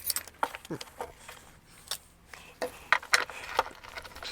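Scattered light clicks and knocks of hand tools and metal parts being handled, a dozen or so at uneven spacing, while bolts are worked loose.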